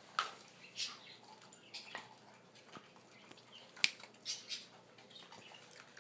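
Squeaky dog toy giving short, irregular high-pitched squeaks as a puppy chews it, with one sharp click about four seconds in.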